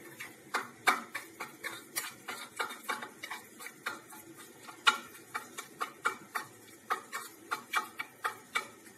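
Metal spoon stirring soft garlic butter in a bowl, clicking and scraping against the side about two or three times a second as the butter, garlic, chili flakes and coriander are mixed into a paste.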